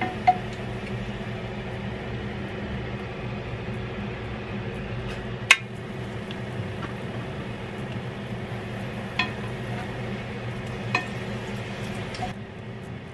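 Dried whitebait sheets shallow-frying in oil in a pan, a steady sizzle, with a few sharp clicks of the cooking utensil against the pan. The sizzle drops away just before the end.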